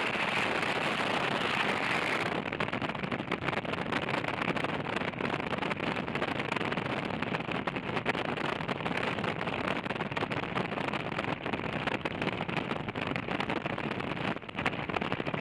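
Steady wind and road rush from a touring motorcycle at motorway speed, crackling on the camera microphone. About two seconds in, the sound changes abruptly and becomes duller.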